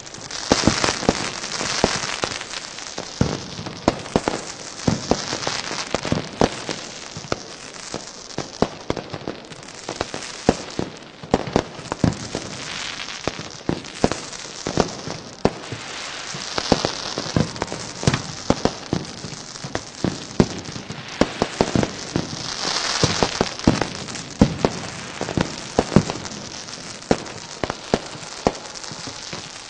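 Fireworks going off: an irregular stream of sharp bangs and pops, with stretches of crackling hiss.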